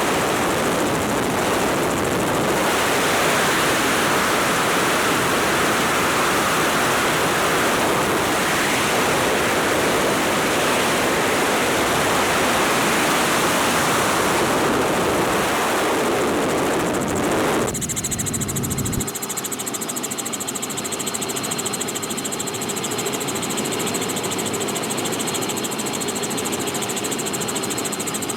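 Loud wind rushing over the microphone in the doorway of a doorless Robinson R44 helicopter in flight. A little over halfway through, the wind noise drops suddenly and the helicopter's engine and rotor drone comes through, steady with a fine, even beat.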